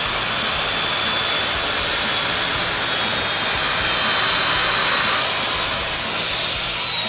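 Circular saw running at full speed with a steady high whine. About six seconds in, the whine begins to fall slowly in pitch.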